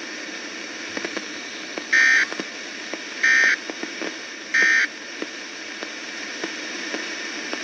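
Three short, buzzy data bursts about a second and a quarter apart, played through a RadioShack weather radio's speaker over a steady hiss of static. These are NOAA Weather Radio SAME end-of-message tones, closing the warning just broadcast.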